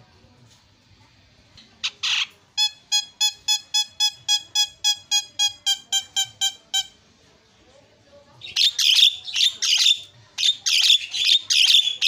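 Javan myna calling: a short harsh note about two seconds in, then a run of some sixteen identical ringing notes at about four a second. Near the end come two bouts of loud, harsh chattering squawks.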